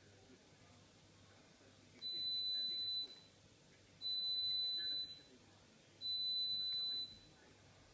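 Three high-pitched electronic beeps, each a steady tone about a second long, two seconds apart.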